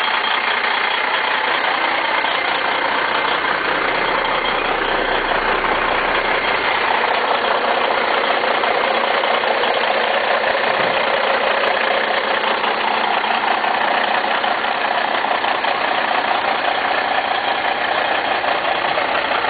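Caterpillar C-15 inline-six diesel in a 2003 Kenworth W900L truck, idling steadily.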